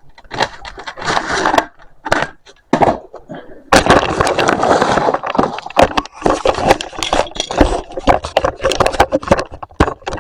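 Model railway coaches and their boxes being handled: a busy run of clicks, knocks and scraping, with a longer stretch of rustling and scraping a little before the middle.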